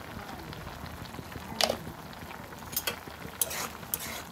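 Eating sounds during a fish curry mukbang: a handful of short, sharp clicks and scrapes from handling and eating the food over a plate. A faint steady hiss runs underneath.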